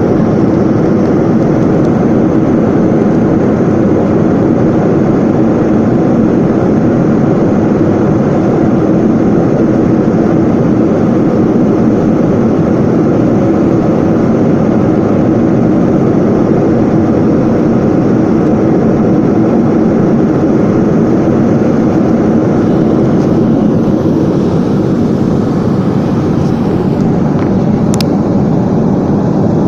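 Airplane engine noise, loud and steady throughout, easing slightly about 24 seconds in, with one brief click near the end.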